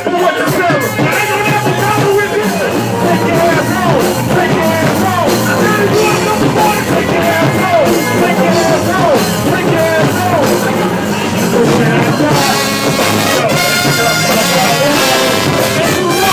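Live band playing loud dance music in an instrumental stretch, with a melody line that repeatedly slides down in pitch.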